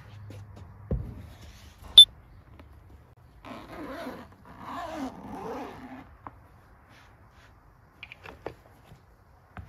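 Zipper of a padded carrying case pulled open in two long rasping drags, from about three and a half to six seconds in. A low thump comes about a second in, and a short, sharp click with a high ring, the loudest sound, comes at about two seconds. A few light handling clicks follow near the end.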